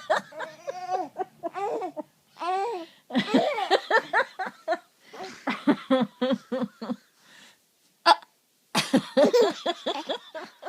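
A young boy laughing in several bouts of giggles, with one short, sharp hiccup about eight seconds in.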